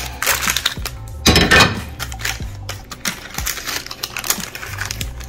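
Light knocks and clicks of a ceramic Temp-tations baking dish being handled upside down as a baked cake is turned out of it. A louder scuffing noise comes about a second and a half in.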